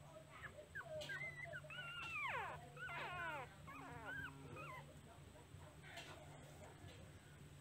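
Young nursing puppies whimpering: a run of high, wavering cries that slide up and down in pitch, loudest around two to three seconds in, dying away by about four and a half seconds.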